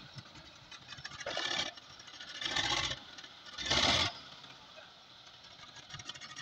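Tractor-mounted dozer blade scraping and shoving loose soil, in three short gritty bursts about a second apart.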